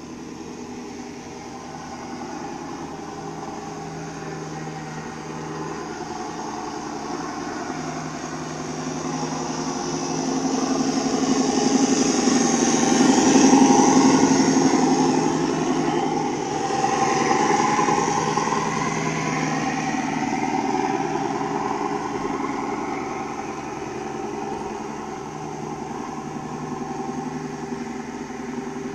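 Radio-controlled model Scania truck running with a steady engine sound. It grows louder as the truck approaches and is loudest as it passes close by about halfway through, then eases off as the truck drives away.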